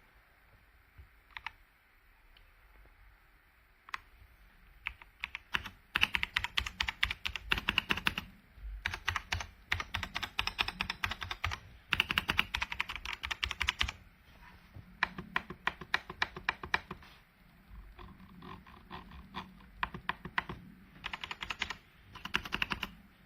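Typing on a KOORUI full-size mechanical gaming keyboard fitted with upgraded switches. A few single keystrokes come first, then fast runs of keystrokes in bursts of about two seconds with short pauses between them.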